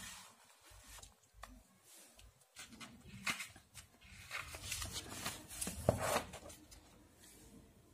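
Faint handling noise of a paper textbook being moved: scattered soft rustles and scrapes, starting a few seconds in and dying away near the end.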